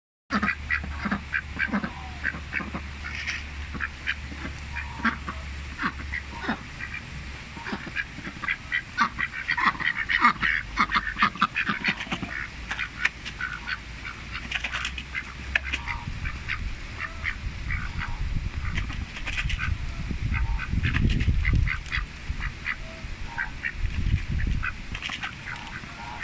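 White domestic ducks quacking over and over in short calls, busiest about ten seconds in. A low rumble sits under the second half.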